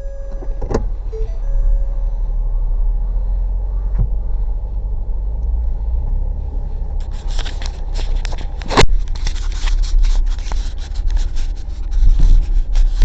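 Car running, a steady low rumble heard from inside the cabin. From about seven seconds in it is joined by scraping and rustling, with a sharp click in the middle of it.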